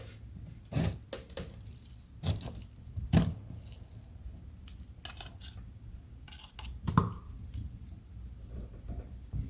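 Handling sounds while a coating is brushed onto a 3D-printed plastic mask: a few light knocks and clicks, the loudest about 3 s and 7 s in, with faint scraping in between.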